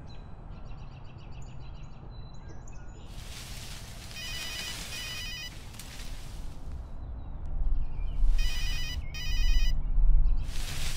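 A rapid trilling electronic ring, like a phone ringtone, sounds in two short bursts. It plays over rushing, hissy noise and a low rumble that swells near the end.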